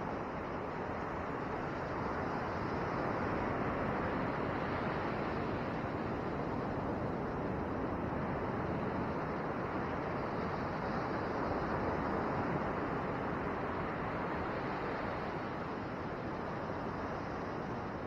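Ocean surf breaking and washing up a sandy beach: a steady rushing that swells a little twice.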